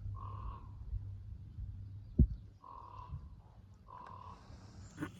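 A crow cawing three times, each caw about half a second long, with a single sharp thump about two seconds in.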